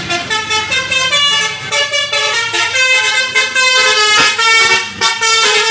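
Basuri telolet bus horn playing a quick melody of stepped notes, several tones sounding together, loud and continuous.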